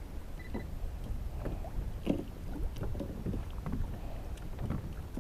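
Small irregular splashes of water lapping against a kayak hull, over a low steady rumble of wind on the microphone.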